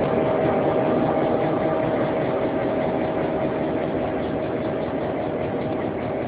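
Diesel engine of a JŽ class 661 'Kennedy' diesel-electric locomotive running steadily under the moving train, with a steady whine over the engine noise, easing slightly in level.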